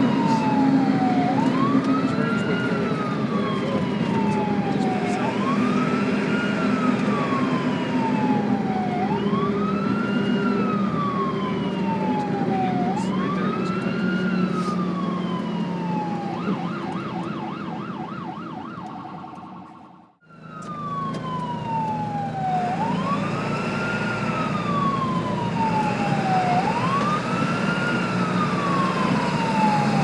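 Ambulance siren wailing: each cycle rises quickly and then falls slowly, repeating about every four seconds over the steady hum of the vehicle's engine. Briefly a fast warble joins in. About two-thirds through it fades out, and another recording of the same wail starts.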